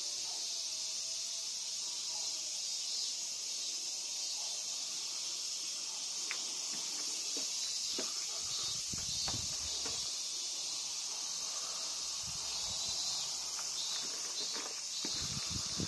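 Steady, high-pitched drone of summer insects, with footsteps thudding on and off from about halfway through and again near the end.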